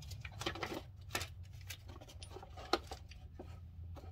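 Light, irregular clicks and taps of tools and parts being handled under the truck, a few per second, over a steady low hum.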